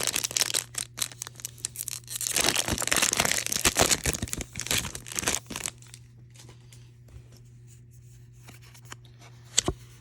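Foil wrapper of a Pokémon booster pack being torn open and crinkled, with the loudest tearing and rustling from about two to five and a half seconds in. Then it goes quiet apart from a steady low hum, with a single sharp click near the end.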